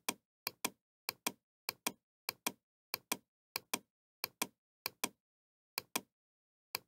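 Computer mouse clicking in pairs of sharp clicks. A pair comes roughly every 0.6 s, about eleven times, as rows are selected one after another.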